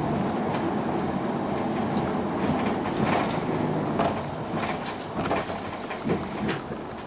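Inside the cabin of a 2006 Isuzu Erga (PJ-LV234L1) non-step city bus under way: the diesel engine running steadily with road noise. Scattered clicks and rattles come in from about two and a half seconds, and the sound eases off near the end.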